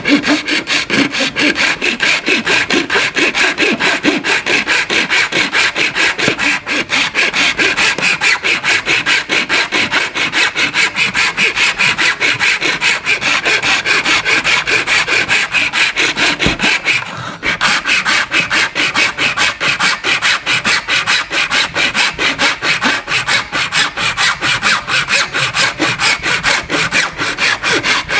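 Steady back-and-forth strokes of a hand tool cutting away at a battery adapter's housing so that it will fit the tool, with a brief pause about seventeen seconds in.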